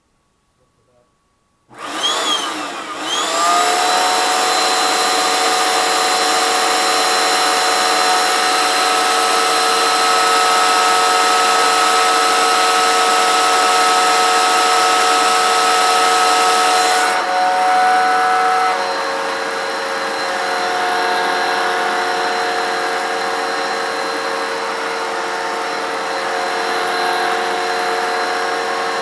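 Bissell ProHeat 25A32 carpet cleaner switched on about two seconds in, its motor spinning up with a rising whine and then running steadily with a high whine. About two-thirds of the way through the tone changes and the sound drops a little in level. The machine is being test-run after a belt, power switch and cord repair.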